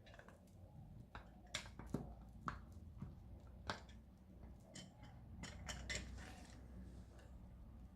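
Light plastic clicks and knocks from handling a Fluke 17B+ multimeter and a fitting piece, pushing parts into place by hand. Scattered and irregular, with a few sharper clicks in the middle.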